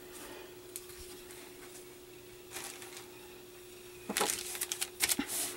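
Clear plastic parts bag crinkling and rustling as a model kit sprue in it is handled, starting with a brief rustle and then a dense run of crackles from about four seconds in. A faint steady hum sits underneath.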